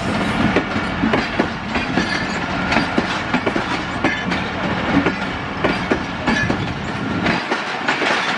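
Pakistan Railways passenger coaches rolling past, their wheels clacking over rail joints and points in quick, irregular knocks over a steady rolling rumble. Near the end the deep part of the rumble drops away.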